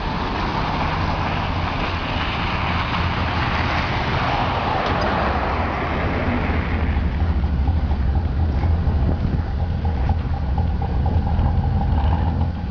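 LiAZ-677M city bus with its ZIL V8 petrol engine running at close range, a deep low rumble. A broad rushing noise lies over it for the first six or seven seconds, then fades, leaving the engine idling.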